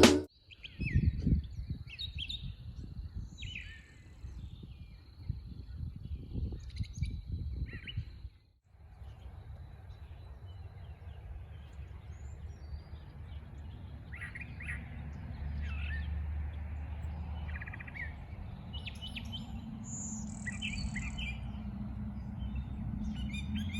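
Grackles calling in short, scattered chirps and squeaks over a low steady rumble.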